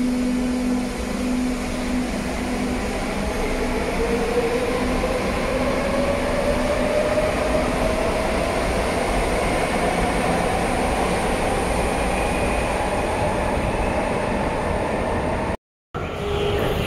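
CAF-built Madrid Metro series 5000 electric train pulling out of a station. A steady hum gives way to the whine of its traction motors, rising slowly in pitch as it gathers speed over the rumble of the wheels on the rails. Near the end the sound breaks off briefly, and a steady hum of another train standing at a platform follows.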